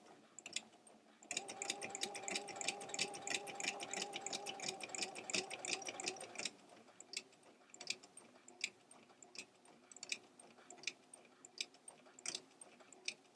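Domestic electric sewing machine with a walking foot stitching through laminated cotton and grip mat: a steady hum with rapid needle strokes that runs for about five seconds and then stops. Scattered light clicks follow as the fabric is handled.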